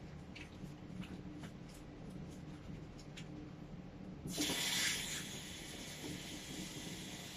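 Faint rubbing and small wet ticks of hands being washed at a bathroom sink. About four seconds in, the tap is turned on and water runs steadily into the basin for the rinse.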